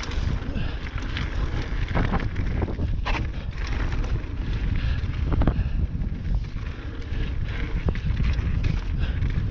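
Wind buffeting the microphone of a mountain bike's onboard camera, with scattered knocks and rattles from the bike on the trail.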